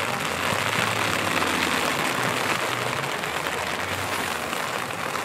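Steady outdoor noise with the low, even hum of a distant engine underneath.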